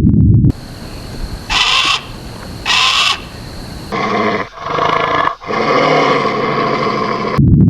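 Recorded animal calls spliced one after another: two short calls, then a longer pitched call broken by two brief gaps.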